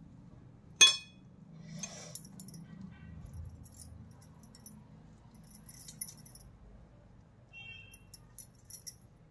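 Glass bangles clinking and jingling on a wrist as the hands press and shape a sesame-peanut mixture in a steel bowl, in short scattered clinks, with one sharp louder clink about a second in.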